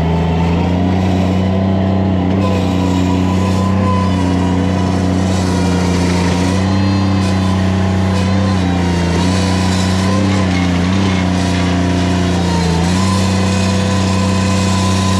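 A small engine running steadily at high revs, with a few brief dips in pitch as it takes load.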